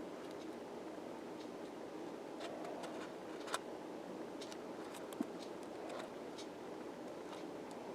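Faint light clicks and small scrapes of hands working on a speaker being re-coned, with two sharper ticks about three and a half and five seconds in, over a steady background noise.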